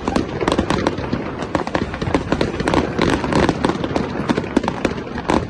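Fireworks going off in a dense, continuous barrage of sharp bangs and crackles, many per second with no pause.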